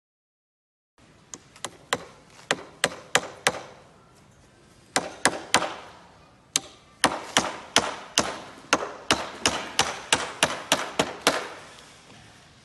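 Hammer driving nails into plywood formwork boxes: sharp, ringing strikes at about three a second, starting about a second in, in three runs broken by short pauses.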